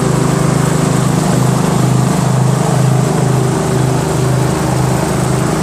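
Craftsman 13.5 HP OHV riding mower's engine running steadily as the mower cuts grass, with a slight regular waver in its hum.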